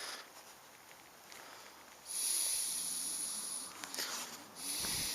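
Hissy, breath-like rushes of air close to the microphone, one every couple of seconds.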